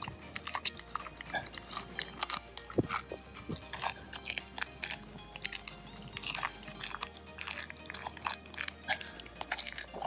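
A dog chewing food close to the microphone: many short, irregular crunches and bites, with background electronic music underneath.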